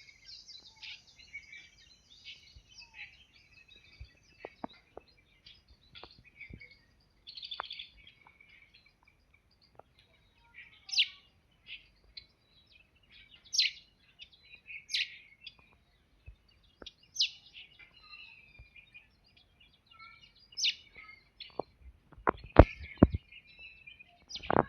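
Several small songbirds chirping, with loud, sharp chirps every couple of seconds over a background of fainter twittering. Scattered clicks run through it, coming thicker near the end.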